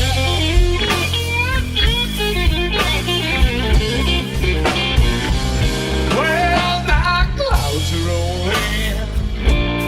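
Electric blues band playing live: lead guitar fills with bent notes over a steady bass and drum groove, in a gap between sung lines.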